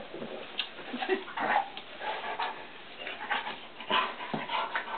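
A young English Setter giving a series of short whines and yips, begging for treats.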